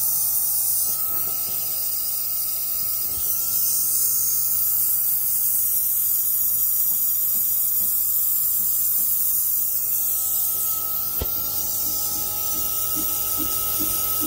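Air-operated vacuum brake bleeder running on compressed air: a steady, loud hiss of air with a constant whistle. It is drawing brake fluid and air out through a drum brake's bleeder screw to bleed the brakes.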